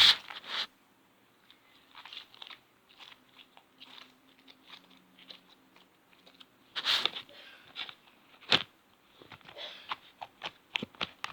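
Slime being worked by hand: scattered faint sticky crackles and squelches, a louder pop about seven seconds in and another about a second and a half later, then a quick run of small clicking pops near the end.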